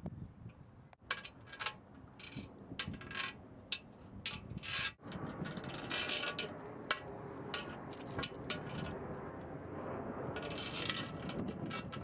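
Metal chain dog leash clinking and scraping against a metal table and its post, in irregular quick jangles that come in denser bursts twice.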